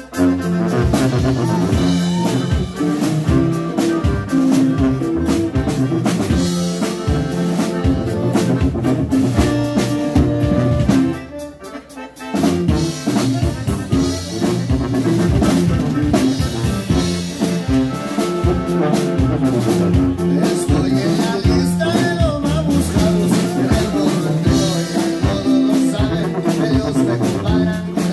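Live norteño-style band music: tuba, acoustic guitar and button accordion playing together. The music drops out briefly about eleven seconds in, then picks up again.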